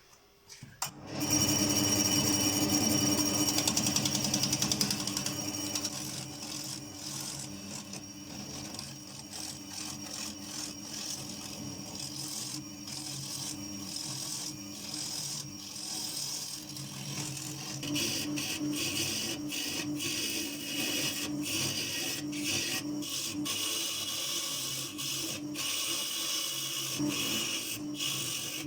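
A woodworking power tool starts about a second in and runs steadily on maple wood with a rasping, scraping cut. It is loudest for the first few seconds, then settles lower, with scattered sharp ticks of wood contact later on.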